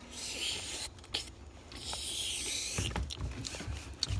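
Cloth rustling and handling noise close to a phone's microphone: hissy rubbing in two stretches, then low bumps and a few sharp clicks in the last second or so.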